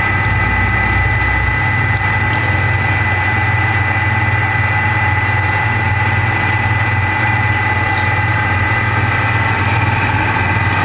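Chungha CHPB-2 salmon pin bone remover running: a steady motor hum with a thin, steady high whine over a hiss of water spray.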